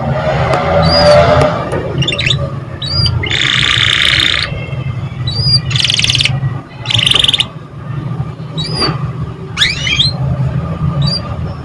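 Domestic canary singing: repeated short rising chirps broken by dense buzzy trills, over a steady low hum.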